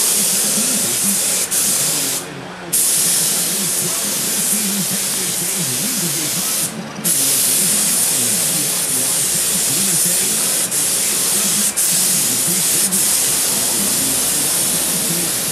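Compressed-air paint spray gun with a siphon cup, hissing steadily as it sprays paint. The hiss breaks off briefly twice, about two seconds in and again about seven seconds in.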